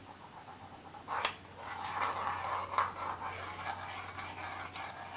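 Plastic Intellect Ball maze puzzle turned over in the hands: plastic rubbing and scraping with scattered light clicks, starting about a second in.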